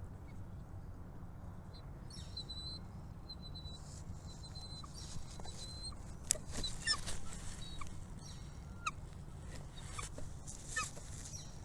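Small birds chirping with high, thin calls: a few short held notes in the first few seconds, then quicker, busier chips from about five seconds in. A steady low hum runs underneath.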